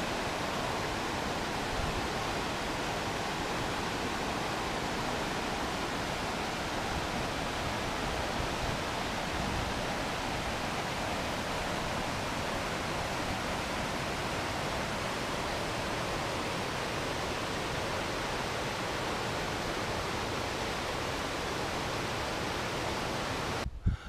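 Mountain stream rushing over rocks and small cascades, a steady rush of water that cuts off suddenly near the end.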